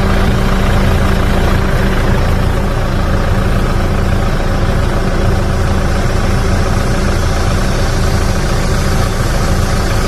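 Car engine idling steadily with the hood open, with an even rushing noise over it. A steady hum fades out about two seconds in.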